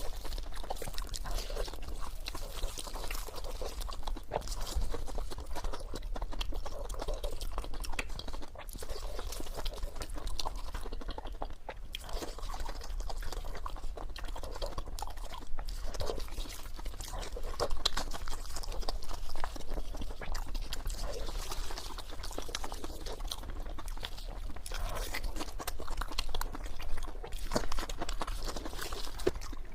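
Close-miked chewing and crunching of fried pork, with many short irregular clicks, over a low steady hum.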